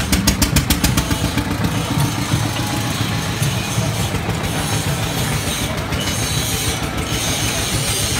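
Farmtrac tractor's diesel engine idling with a steady low rumble, with a fast run of ticks in the first second.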